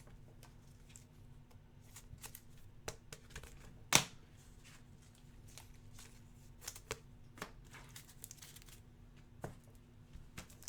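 2019-20 Hoops basketball trading cards being slid and flipped through by hand: faint scattered clicks and rustles, with one sharper tap about four seconds in.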